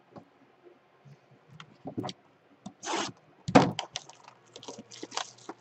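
Hands handling a cardboard trading card box: a run of short scraping and crackling noises that starts about a second and a half in and is loudest around three seconds in.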